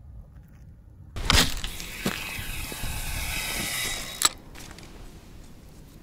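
Casting a feeder rod: a sudden swish, then fishing line hissing off a spinning reel's spool for about three seconds, ending in a sharp click as the bail arm is closed.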